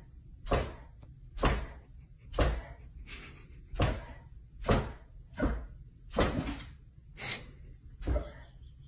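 A run of about ten sharp knocks or bangs, roughly one a second and somewhat uneven, each with a brief low ring after it.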